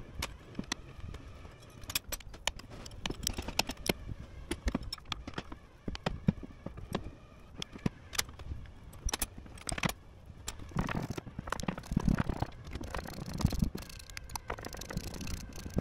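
Hand tools clicking and clinking against the metal fuel-line fittings of a diesel engine as the lines are unfastened. The sharp metallic ticks come at irregular intervals, with some duller knocks in the second half.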